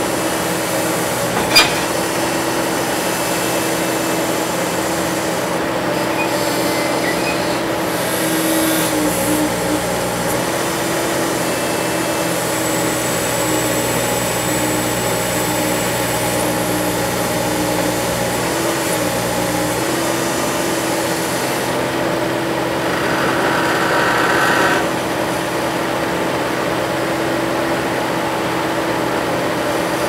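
Bobcat T190 skid steer's diesel engine running steadily under load as its hydraulics strain to lift a heavy engine unit. The engine note shifts about ten and twenty seconds in. There is one sharp knock about two seconds in and a brief louder rush of noise about three quarters of the way through.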